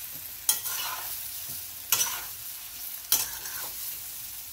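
Pieces of khaman dhokla being tossed with a metal utensil in a metal pan of hot oil tempered with mustard seeds and chilies. The oil keeps up a steady sizzle, and the utensil strikes the pan three times.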